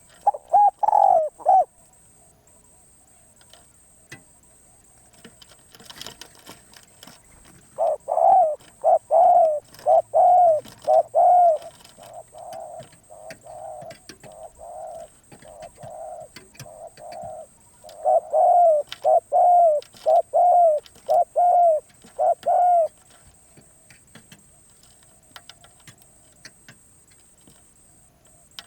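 Spotted dove cooing: a short phrase near the start, then long runs of repeated coos at about two a second, loud, fainter for a few seconds in the middle, then loud again before stopping.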